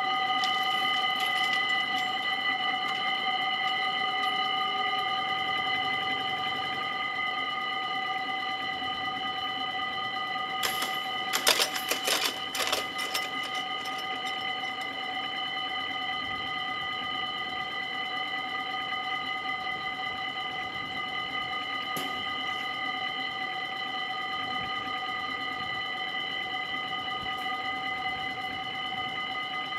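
Dutch level-crossing warning bells ringing steadily in a rapid, high electronic ring. A short burst of clattering knocks comes about eleven to thirteen seconds in, while the barriers are coming down.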